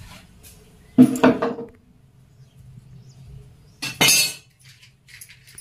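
Metal cookware clinking twice, about a second in and about four seconds in: a utensil striking a metal cooking pot, each strike ringing briefly.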